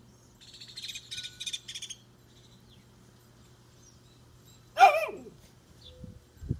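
A bird chirping rapidly in high, quick pulses for about a second and a half, then a single loud dog bark that drops in pitch, about five seconds in.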